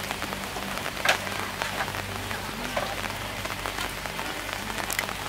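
Duck frying in a large pan of hot oil: a steady sizzle dotted with small crackles and pops, with a sharper pop about a second in and another near the end. A faint low hum runs underneath.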